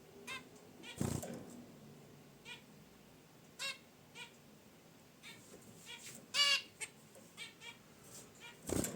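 Zebra finches giving short nasal honking calls, a dozen or so scattered at irregular intervals, the loudest about six and a half seconds in. Two brief rustles come about a second in and near the end.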